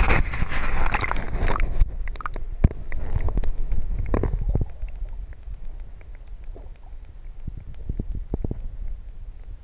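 Water splashing and sloshing at the surface while a Murray cod is held in the river. About two seconds in, the sound suddenly becomes muffled as the microphone goes underwater: a low rumble with scattered knocks from hands and fish moving in the water.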